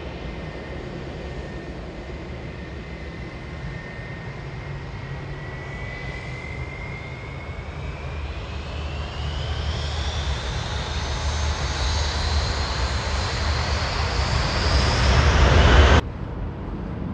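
Jet engines of a British Airways Airbus A320-family airliner spooling up on the runway: a steady rumble under a whine that rises in pitch and grows louder over several seconds, typical of thrust coming up for takeoff. The sound cuts off suddenly near the end.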